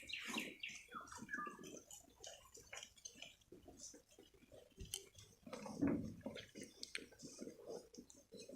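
Faint scattered clicks and scrapes of a sharp knife paring a goat's hoof, with one brief louder sound about six seconds in.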